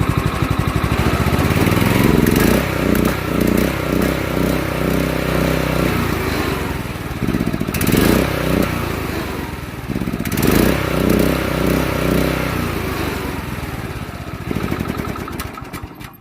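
Subaru small engine on a sawmill running and being throttled up and down, its revs rising and falling several times, then dying away and stopping near the end. It stalls under repeated on-off throttle.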